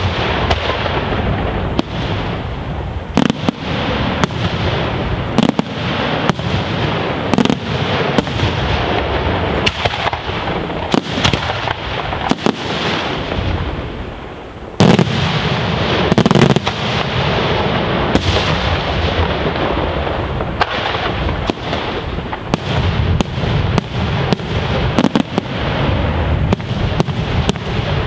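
Daytime aerial fireworks shells bursting overhead in a rapid, continuous barrage of bangs and crackling. There is a short dip about halfway, then a loud burst of bangs.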